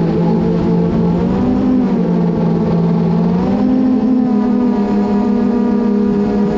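FPV quadcopter's electric motors and propellers whining, recorded from the drone itself; the pitch shifts with throttle, stepping up about halfway through.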